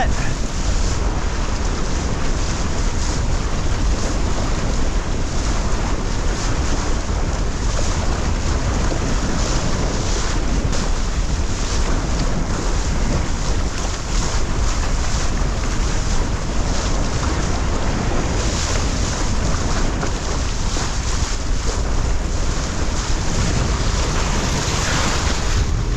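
Strong wind buffeting a GoPro microphone, mixed with the steady rush of water under a windsurf board sailing through waves.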